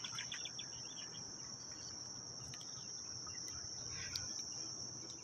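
Steady high-pitched insect chorus, one unbroken trill from marsh insects, with a few faint short chirps in the first second.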